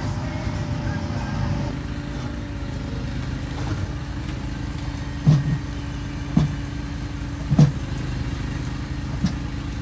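A steady low rumble like a running vehicle, with a few short sharp thumps in the second half.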